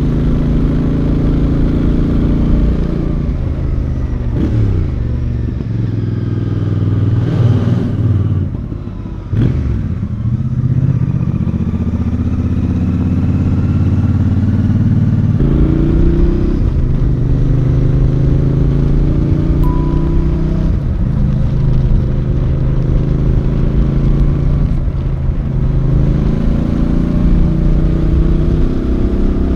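Royal Enfield Bear 650's 648cc parallel-twin engine running under way, revs rising and falling. The engine note drops and fades about eight to nine seconds in, then climbs again, with a sudden step in pitch partway through.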